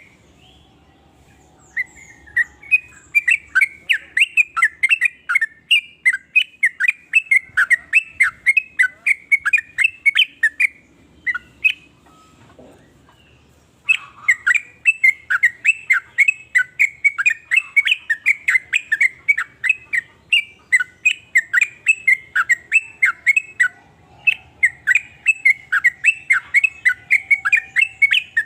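Yellow-vented bulbul (trucukan) singing vigorously: a long, rapid run of short chattering notes, about three to four a second, broken by a pause of a few seconds near the middle.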